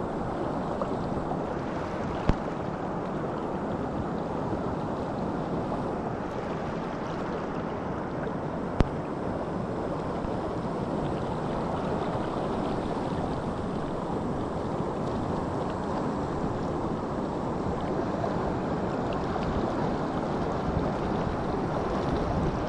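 Steady rushing of river water, with two sharp clicks, one about two seconds in and one near nine seconds.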